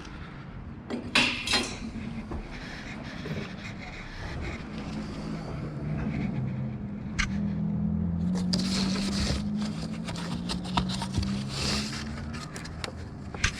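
Metal hand tools and engine parts clinking, knocking and scraping during dismantling work on a car's engine bay. There are a couple of sharper knocks about a second in and a busier run of clinks in the second half. A steady low hum comes in during the middle and fades near the end.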